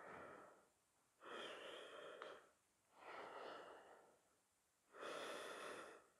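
Faint, slow, deep breathing by a man holding a prone back-bend (locust pose). There are four breaths, each about a second long, with short pauses between them.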